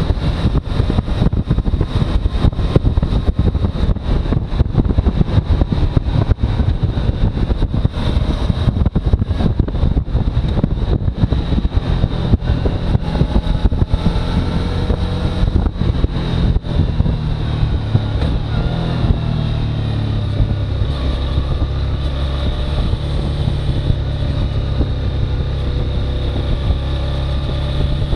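Suzuki V-Strom motorcycle engine running while riding, with wind buffeting the microphone, heaviest in the first half. The engine note rises and falls in pitch around the middle, then settles into a steady drone.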